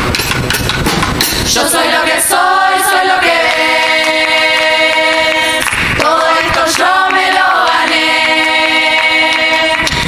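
Murga chorus of young women singing in close harmony, holding long chords: one from about two seconds in, a short break near six seconds, then another to the end. A few sharp percussive hits sound at the start.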